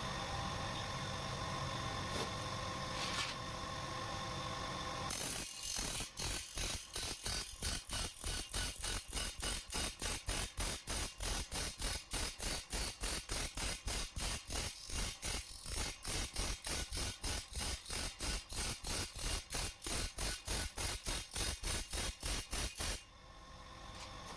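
Motor-driven grinding wheel running. From about five seconds in, a chaff-cutter blade is held to it and ground with a fast, even pulsing chatter, several strokes a second. Near the end the blade comes off and the wheel runs on more quietly.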